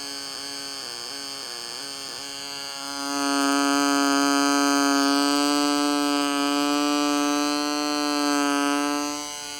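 Homemade two-transistor (S9014/S9015) door-alarm oscillator buzzing through a small speaker: a steady, buzzy single-pitch tone that gets louder about three seconds in and drops back near the end.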